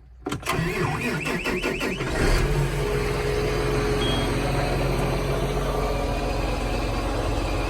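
A farm machine's engine being started with the key: the starter cranks for under two seconds, then the engine catches and settles into a steady idle.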